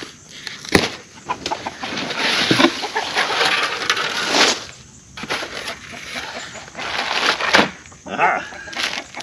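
Chickens clucking, with rustling and a couple of sharp knocks as flat-pack coop parts and packaging are handled.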